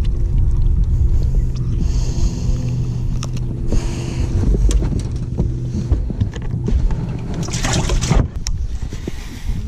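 Steady low motor hum on a bass boat, with even tones under it, while a freshly caught bass is handled on the deck: scattered knocks and rustles, and a louder rushing noise about eight seconds in.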